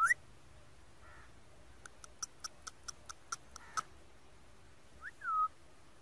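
Male rose-ringed parakeet (Indian ringneck) calling: a short rising whistle, then a run of about nine quick, sharp clicks over two seconds, then a whistle that rises and falls near the end.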